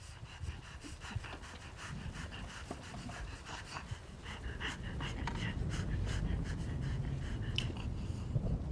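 A young woman panting hard with open mouth, in quick ragged breaths. A low rumble swells beneath from about halfway through.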